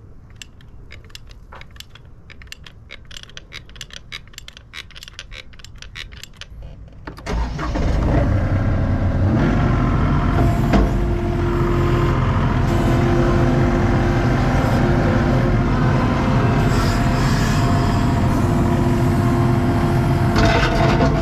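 Sharp clicks of a caulking gun, several a second, as sealant is run around a PVC pipe elbow. About seven seconds in, a skid-steer loader's diesel engine takes over, running steadily from inside the operator's cab, with a steady whine that comes and goes.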